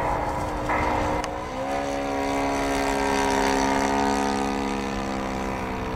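Cessna 182 flying overhead, its propeller engine droning steadily. Its pitch rises about a second and a half in, then holds and drifts slightly lower. A brief rushing noise comes before the engine tone rises.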